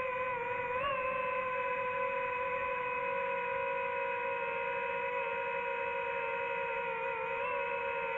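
DJI FPV drone's motors and propellers whining steadily in flight, one high whine with overtones whose pitch bends briefly about a second in and again near the end as the throttle shifts.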